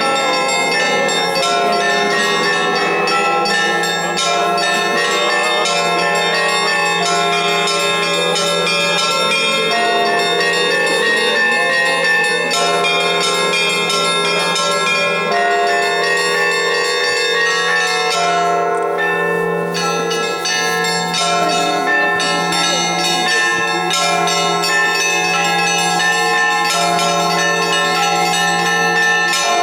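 Russian Orthodox church bells rung in a festive peal: many bells of different pitches struck in quick succession, their tones overlapping, over a steady low hum.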